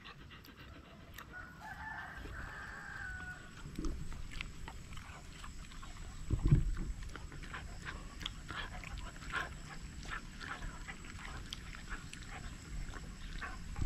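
A dog smacking and licking its lips after being fed pork jerky: an irregular run of short wet clicks, with one low thump about six and a half seconds in.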